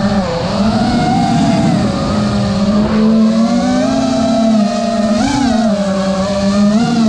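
FPV quadcopter's four brushless motors (iFlight XING 1777KV) and propellers whining in flight, heard from the camera on the quad itself. The pitch shifts with throttle: mostly steady, with quick swells about five seconds in and again near the end.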